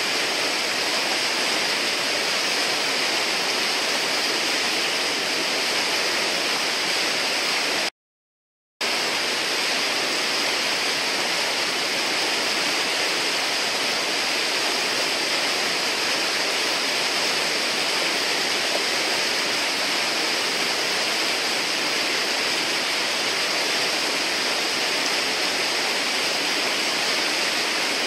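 River whitewater rushing and churning steadily, a constant hiss of foaming rapids. The sound cuts out completely for under a second about eight seconds in.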